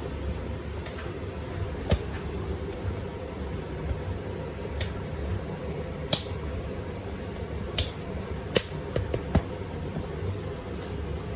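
Beko WTK104121A washing machine running early in a Quick 30° wash: a steady low hum. Sharp clicks and clinks come through it, one about two seconds in and a quick run of them near the end.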